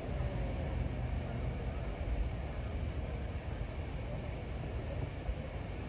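Steady low rumble with a faint hiss behind it, with no distinct knocks or calls standing out.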